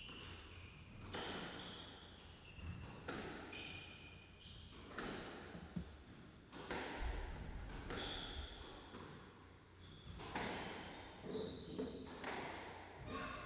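A squash rally: the ball is struck by the rackets and smacks off the walls about every two seconds, each hit echoing in the enclosed court, with short high squeaks of court shoes on the hardwood floor between the shots.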